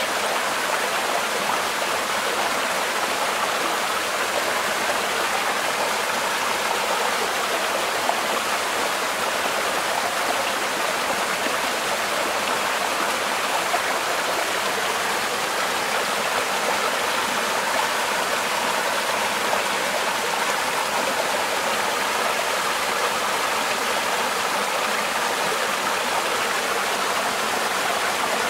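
Small woodland stream splashing steadily down a little cascade over rocks.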